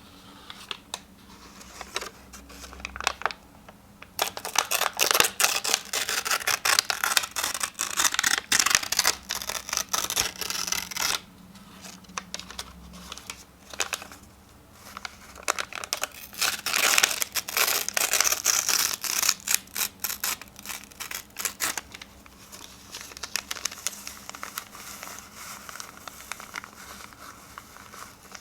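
Sheets of paper being torn close up, in two long stretches of dense, crackly ripping, with softer rustling and handling of the paper before, between and after them.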